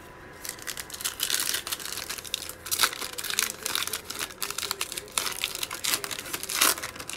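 Foil wrapper of a Mosaic football trading-card pack crinkling and tearing as it is ripped open by hand, starting about half a second in.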